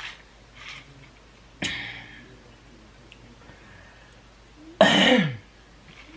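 A woman clears her throat twice while eating: a short, sharp one about a second and a half in, and a louder, longer one near the end that drops in pitch.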